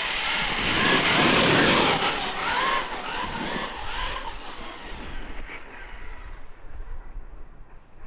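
Losi Tenacity MT 1/10-scale electric RC monster truck on a full-throttle speed pass: motor whine and tyre noise, loud for the first three seconds, then fading steadily as the truck runs off into the distance.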